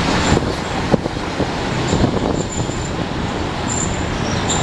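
Interior of a Milan 1928 Peter Witt tram (Ventotto) running along the street: a steady rumble of the wheels on the rails, with scattered knocks and rattles of the old car body.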